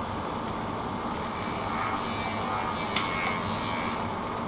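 Mountain bike drivetrain turning over: the chain running steadily across the SRAM XO1 cassette, newly fitted with a OneUp 44-tooth cog, as the cranks are turned. A single sharp click about three seconds in, as the chain shifts between cogs.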